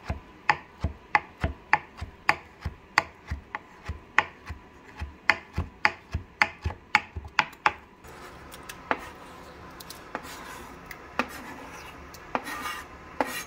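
Knife chopping canned chipotle peppers in adobo on a plastic cutting board, about three sharp knocks a second for nearly eight seconds. Then a softer steady rustling and scraping with scattered clicks as the chopped peppers are scraped off the board into a stockpot, louder near the end.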